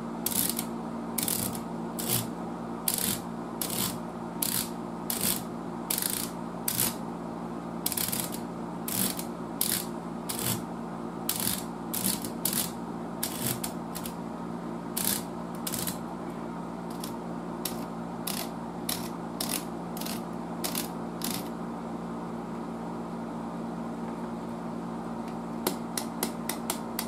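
Rotary selector switches of a 1936 Triplett 1210-A tube tester clicking through their detent positions over and over, about two clicks a second. They are being worked to wipe corrosion off the old nickel-plated switch contacts. The clicking pauses for a few seconds and then comes back faster near the end, over a steady low hum.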